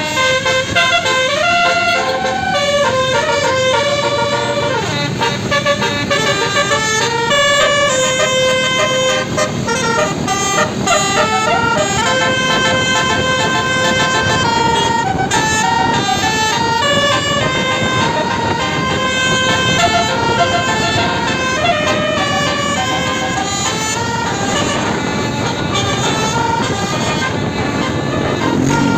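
Basuri 12-note telolet bus horn playing a running melody, its notes stepping up and down one after another without a break, over a steady background rumble.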